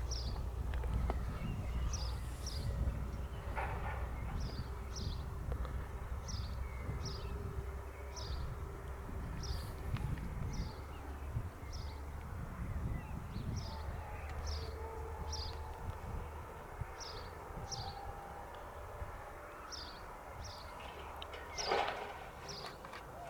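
A songbird calling repeatedly: short, high, downward chirps, often in pairs, every half second to a second. Under them runs a steady low rumble.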